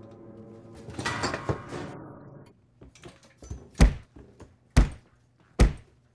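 Sustained background music fades out under a short burst of noise, then three heavy, dull thuds land about a second apart in the second half, like repeated blows.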